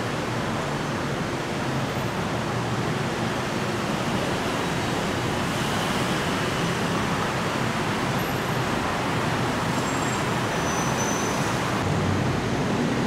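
Steady rumble of vehicles in motion, with no distinct knocks or horns, growing a little louder near the end.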